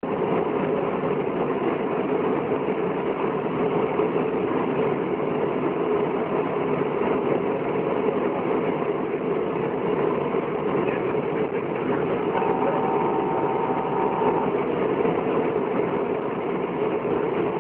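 Steady engine and road noise of a vehicle driving along a paved road, heard from inside the cab. A short steady tone sounds for about two seconds, about twelve seconds in.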